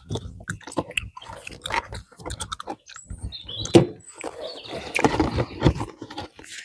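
Foil wrapper of a Pokémon booster pack crinkling and crackling as it is torn open and the cards are pulled out. A run of small irregular crackles, with one sharper crackle about halfway through.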